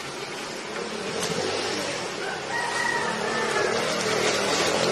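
A drawn-out animal call about two seconds in: a short rising note, then a tone held for over a second, over steady outdoor background noise.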